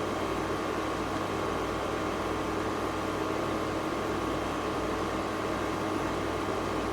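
Steady background hum and hiss, like a fan or air conditioner running in a small room, with no sudden events.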